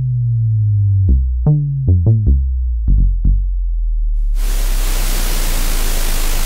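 Massive software synth sub-bass patch: a deep, slowly gliding sub tone, then a run of short plucked low notes. About four seconds in, the patch's noise oscillator comes in as a loud, steady white-noise hiss over the sub, once the filter balance is brought to the middle.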